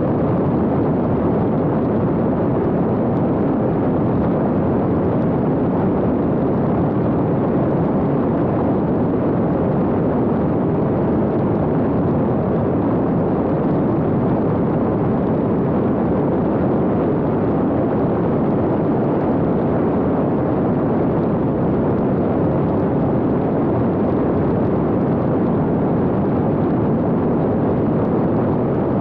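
Steady, loud rush of airflow and propeller noise from an X-UAV Talon fixed-wing drone in flight, heard from a camera aboard the aircraft.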